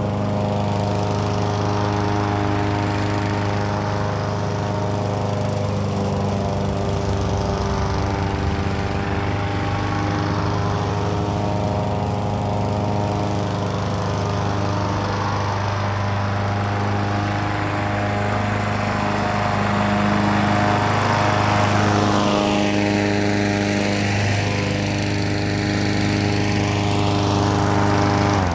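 Weed Eater push mower's small engine running steadily, a little louder about twenty seconds in, then cut off at the very end. It is running smoothly, apparently no longer needing any fixing.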